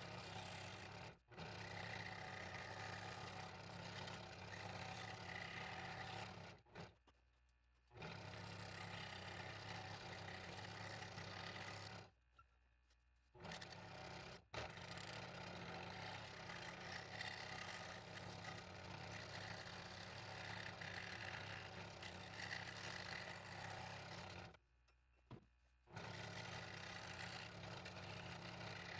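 Scroll saw running and cutting through a wooden fretwork pattern: a steady motor hum under the rasp of the reciprocating blade. It stops and restarts several times.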